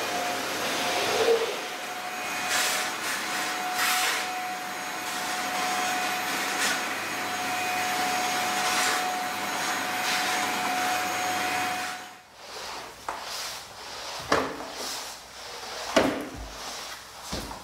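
Corded stick vacuum cleaner running steadily over a laminate floor, a constant whine over its motor and suction noise; it cuts off about twelve seconds in. After that, a few scattered knocks and scrapes of a flat mop being worked over the floor.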